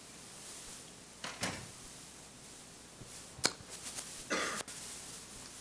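A few scattered knocks and clicks over quiet room noise: a knock about a second in, a sharp click a little past the middle, and a brief clatter near the end.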